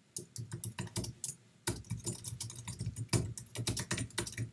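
Typing on a computer keyboard: a fast run of keystrokes, with a short pause about a second and a half in.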